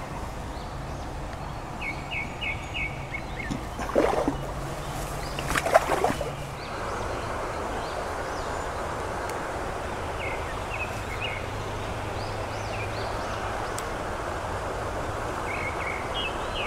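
Steady rush of flowing river water, with a small bird chirping short runs of quick notes at intervals. There are two brief louder bursts of noise about four and six seconds in.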